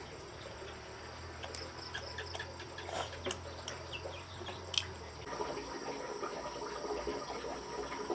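Insects chirping steadily, with scattered light snaps and rustles as greens are stripped from their stems by hand.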